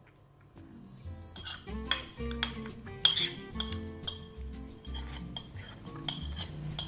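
Metal spoon and fork clinking and scraping against a glass plate while the last of the noodles are scooped up: a string of sharp clinks from about a second in, the loudest around three seconds in, over background music.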